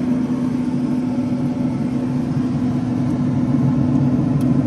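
Traeger pellet grill's fan motor running, a steady electric hum.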